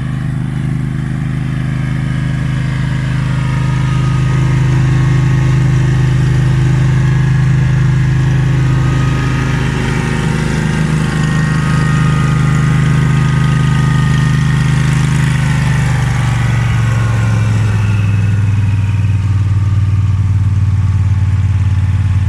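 Agria 9600 tracked remote-controlled slope mower's petrol engine running steadily. It grows louder over the first few seconds, and its pitch drops a little about three-quarters of the way through.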